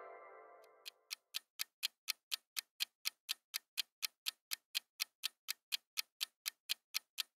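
Clock-ticking countdown sound effect for a quiz timer, sharp even ticks about four a second. At the start the tail of a ringing chime fades out before the ticking begins.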